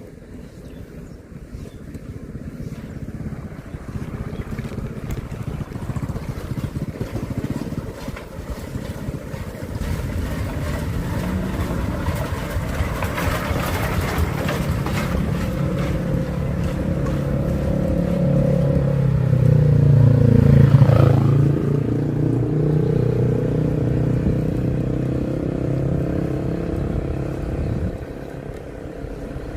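A motor vehicle approaching and passing close, its engine and road noise building to a peak about two-thirds of the way through, then dropping in pitch and fading.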